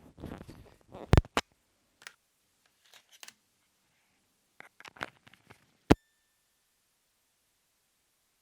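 Handling noise from a small clip-on microphone plugged into a wireless transmitter: scattered clicks, knocks and rustles, then a sharp loud click about six seconds in, after which the audio goes dead silent as the mic is unplugged.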